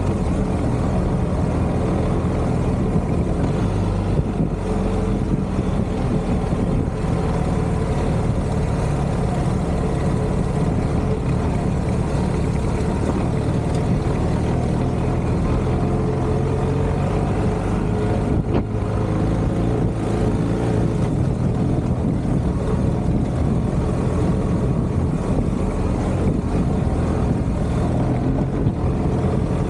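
BMW R1250GS Adventure's boxer-twin engine running at a steady riding pace on a dirt track, its note holding even throughout, with a continuous rush of wind and tyre noise.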